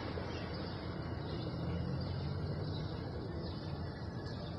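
Steady outdoor background rumble with faint bird sounds from the feeding pigeons.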